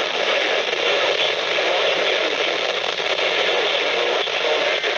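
Steady radio static from a receiver: an even hiss with no clear speech.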